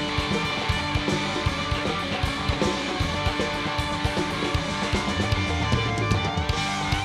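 Live rock band playing an instrumental jam: electric guitars and bass over a drum kit keeping a steady, busy beat.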